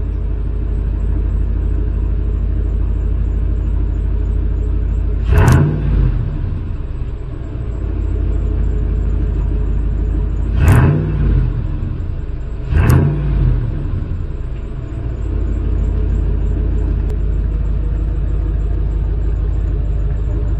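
A 2006 Chevy Suburban 2500's 8.1-liter V8 idling with a deep rumble through a new 3-inch dual exhaust with an X-pipe and race bullet mini mufflers. It is revved briefly three times: about five seconds in, then twice close together around eleven and thirteen seconds, each time rising and settling back to idle.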